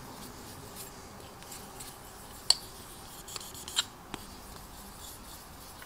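Faint scratchy rubbing of a polishing stick worked back and forth over a clear plastic model canopy to sand out its centre seam, with a few light clicks, the sharpest about two and a half seconds in.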